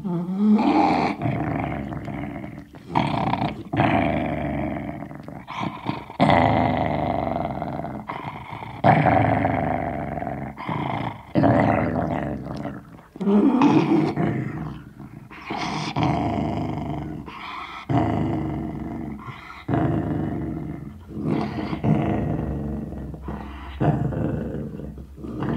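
Sealyham terrier growling over a bone: a string of growls of a second or two each, separated by short breaks, each starting loud and trailing off.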